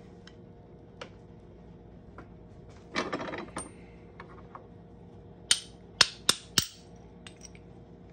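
Steel ring-sizing dies handled on a hand arbor press, metal on metal: a short scraping rattle about three seconds in, then four sharp ringing clinks a couple of seconds later as the dies are set down.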